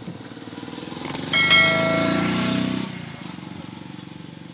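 Subscribe-button animation sound effect: two quick mouse clicks about a second in, then a bell chime that rings with several clear pitches and fades over about a second and a half, over a low pulsing hum.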